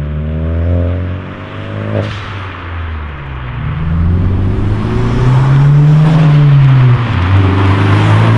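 Honda Civic Si's turbocharged 1.5-litre four-cylinder running through a Magnaflow cat-back exhaust with small mufflers and a straight-through resonator, driving off under acceleration. The engine note falls away at first, then climbs and is loudest about five to seven seconds in, with a brief drop near the end before it rises again.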